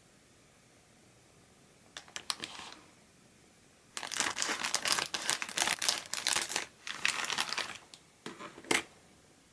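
Crinkly plastic packaging of a Popin Cookin candy kit being handled and opened, crinkling in several bouts. A short crinkle comes about two seconds in, a long dense stretch follows from about four seconds, and a sharp snap comes near the end.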